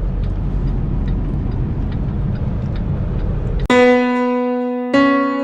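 Steady low rumble of a semi truck's engine and road noise from inside the cab. It cuts off abruptly about two-thirds of the way through and gives way to electric piano music: two sustained notes struck about a second apart, louder than the rumble.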